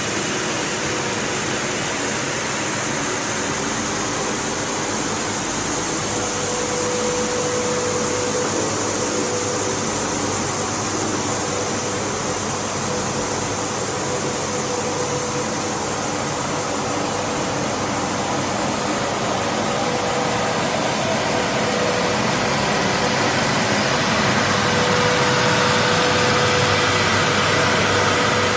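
WPC (wood-plastic composite) pelletizing line running: a steady machine hiss and hum, with a faint whine that fades in and out and a few higher tones near the end.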